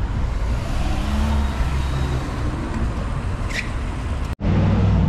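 City street traffic: vehicle engines running with a steady low rumble under road noise. A brief high squeak comes about three and a half seconds in, and the sound drops out for an instant just after four seconds, after which the engine rumble is louder.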